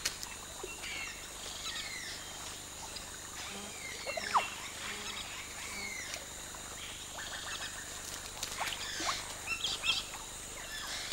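Wild birds calling over marsh ambience: many short chirps and falling whistles, the loudest a sharp falling call about four seconds in.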